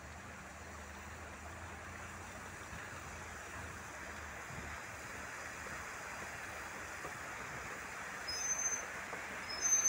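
Steady rushing noise of a Maruti 800 rolling over a rough, rocky road: tyre and wind noise, with a low engine hum that fades out about halfway through. A few short high chirps sound near the end.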